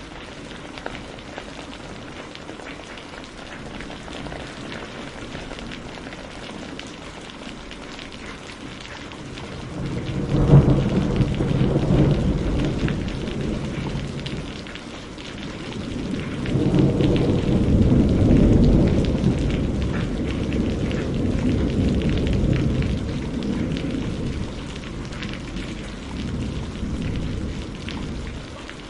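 Thunderstorm: steady rain falling, with two peals of thunder. The first begins with a sharp crack about ten seconds in and rumbles for a few seconds; the second, longer rumble swells a couple of seconds later and rolls away slowly.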